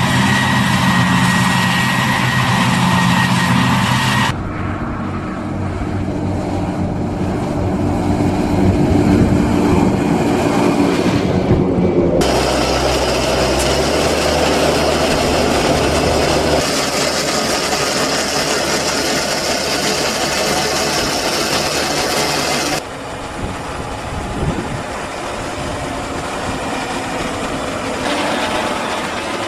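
Heavy farm machinery running under load, in several clips that cut abruptly from one to the next. First a New Holland FR500 forage harvester chops maize and blows it into a forage wagon. Later comes a Deutz-Fahr Agrotron 6190 tractor with its Strautmann forage wagon on the silage clamp, and a John Deere 6175R tractor pushing silage with a maize leveller.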